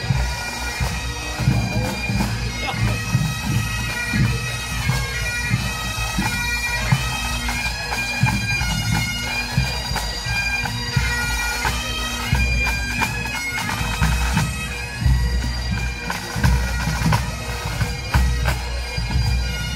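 Pipe band playing on the march: Great Highland bagpipes sounding a melody over their steady drones, with snare and bass drums beating beneath.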